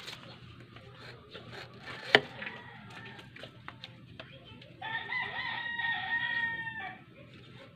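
A rooster crows once, a single call held about two seconds, starting a little past halfway. About two seconds in comes one sharp snap, the loudest single sound, among light clicks and rustling of hands at work.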